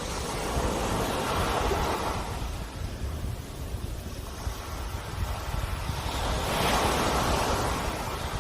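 Sea waves washing ashore: two swells of surf about five seconds apart, over a steady low rumble.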